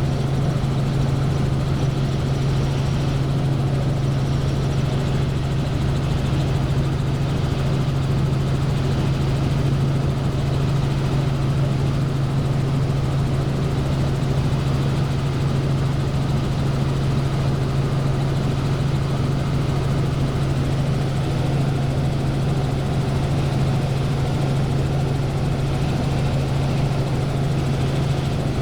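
Helicopter in flight, heard from inside the cabin: a steady, unbroken drone of engine and rotors with a strong low hum.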